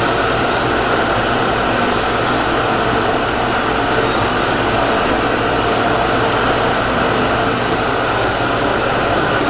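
Steady loud roar and hiss of a gas torch singeing plucked chickens, over a constant low machine hum in the processing room.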